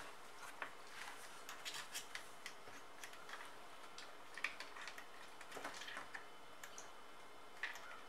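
Faint, irregular small clicks and taps of a dishwasher's plastic door-latch assembly being handled and pressed by fingers.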